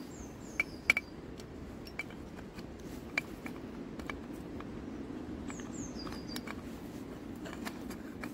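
A few sharp clicks and taps of small metal and plastic parts being handled and fitted together as an electronic EGR valve is reassembled, the loudest within the first second. A bird's short falling chirps come twice, near the start and about two-thirds of the way through.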